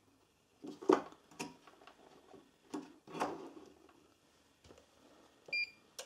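Test leads being handled and reclipped on a microwave high-voltage diode: a few scattered clicks and knocks in the first half. Near the end, a single short beep from the Fluke insulation tester.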